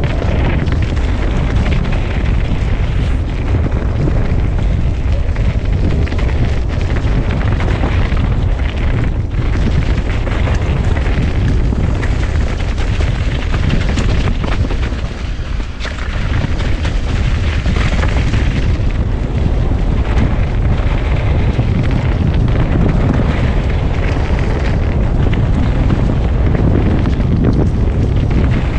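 Steady, loud rumble of wind buffeting the microphone and mountain-bike tyres running over a dirt singletrack descent, with the bike rattling over the bumps.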